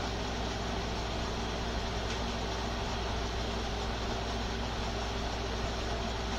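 Steady low electrical or motor hum with an even hiss over it, unchanging: constant room background noise with no distinct events.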